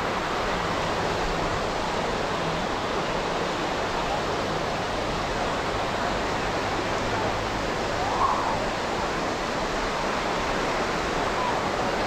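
Steady wash of ocean surf on a busy beach, with faint scattered voices and a brief louder call about eight seconds in.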